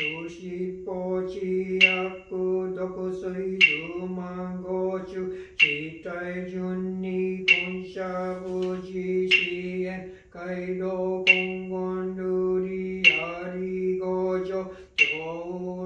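A single male voice chanting a Buddhist sutra in Japanese on one steady low pitch, with a short sharp accent about every two seconds.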